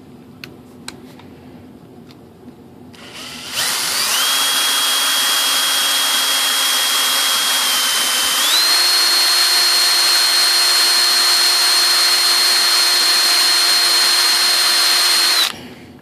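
A few light clicks, then an electric hand drill spins up about three and a half seconds in and runs with a steady whine. The whine steps up to a higher speed about halfway through, then the drill stops shortly before the end. The drill is reaming a little more material out of a motor-mount screw hole.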